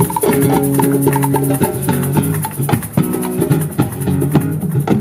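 Acoustic guitar plucking a melody over a fast, even shaker rhythm.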